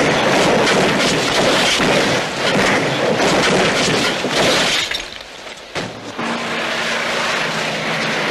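Film sound of a sedan crashing and rolling over: a dense clatter of crumpling metal and breaking glass for about five seconds, then it drops away briefly and gives way to a steady low hum.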